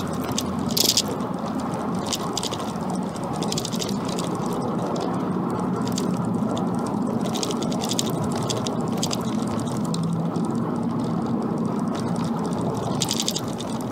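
Vauxhall Astra VXR's turbocharged four-cylinder heard from inside the cabin while driving at steady speed. Its note comes through a Cobra 2.5-inch de-cat front pipe and non-resonated cat-back exhaust, mixed with steady road and tyre noise.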